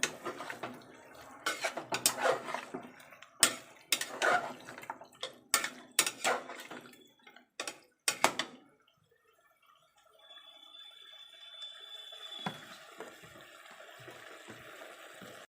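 Spatula scraping and clinking against a pressure cooker pot as chicken pieces are stirred and fried with onions and spices, in irregular strokes for about eight seconds. The stirring then stops and only a faint steady hum remains.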